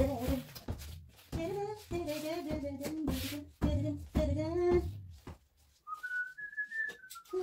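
A voice in short, rhythmic sung or chanted phrases, mixed with thumps of punches on an inflatable punching bag. After a brief lull, about six seconds in, someone whistles one note that rises and falls back.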